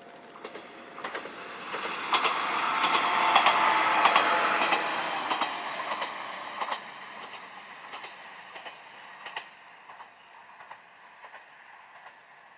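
A Kanto Railway Kiha 100-series single-car diesel railcar passing by, its wheels clicking over the rail joints. The sound swells for a few seconds and then fades away.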